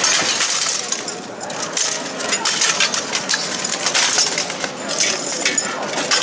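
Repeated sharp metallic clanks and clatter of steel weapons striking each other and plate armour as two armoured fighters spar, with armour plates rattling between the blows.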